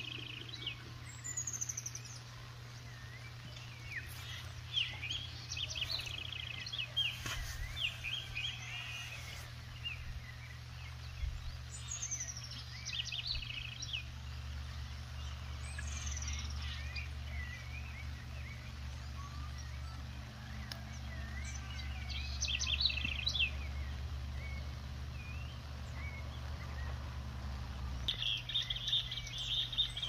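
Several wild birds calling and singing: short chirps, chattering trills and a few quick descending whistles, with a dense chatter near the end. A steady low hum runs underneath.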